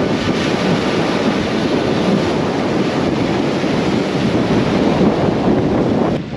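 Small waves breaking and washing over coral rock at the shoreline, with wind buffeting the microphone. The sound drops suddenly just before the end.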